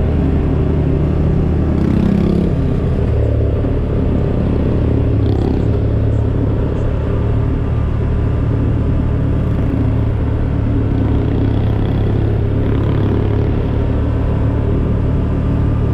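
A motor vehicle driving at a steady speed, its engine running with a low, even drone and road noise underneath.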